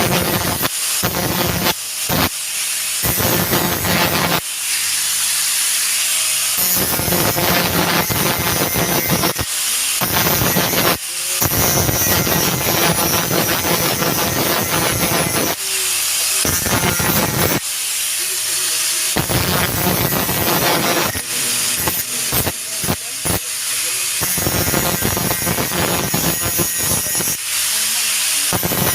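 A handheld power tool working on metal during a muffler replacement, run in repeated bursts of one to several seconds with short pauses between.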